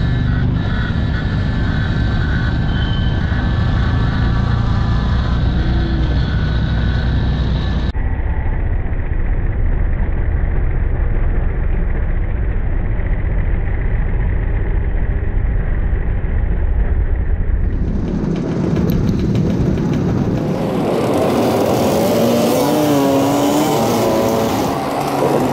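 Motor scooter engines running as a group of scooters rides through city traffic, heard from the rider's own scooter with road and wind noise on the microphone. The sound changes abruptly twice where the footage is cut, and a high wavering squeal comes in near the end.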